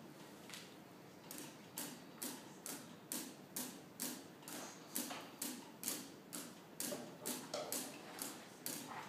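Hands slapping a wooden stage floor in a steady body-percussion rhythm, about three sharp slaps a second, starting about a second in.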